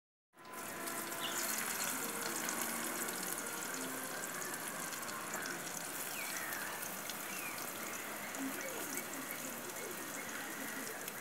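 Chopped onion, ginger, garlic and cinnamon frying in hot coconut oil in a clay pot over a wood fire: a steady sizzling hiss with fine crackling.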